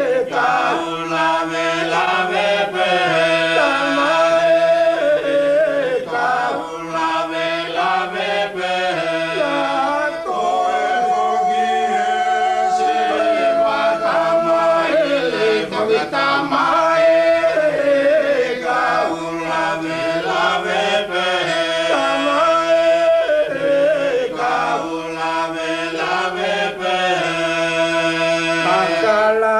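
Voices singing a slow, chant-like song in Wallisian, with long held notes over a steady low drone.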